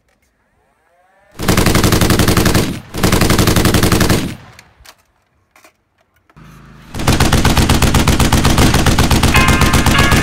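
Motorized Nerf blasters firing foam darts in rapid fully automatic bursts, each shot a quick clack: two short bursts about a second apart early on, then one long unbroken burst from about seven seconds in. A faint rising whir comes before the first burst.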